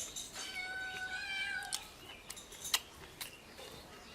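A cat meowing: one long meow lasting over a second, followed by a few sharp clicks.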